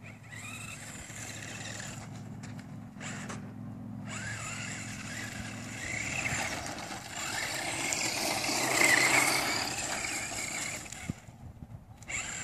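Radio-controlled 4WD truck tearing across loose sand. Its motor whines up and down in pitch as it accelerates and turns, with tyres hissing and spraying dirt. It is loudest about three-quarters of the way through.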